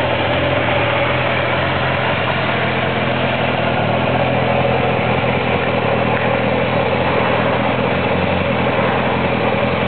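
Yamaha XJ600's air-cooled inline four-cylinder engine idling steadily, with no revving.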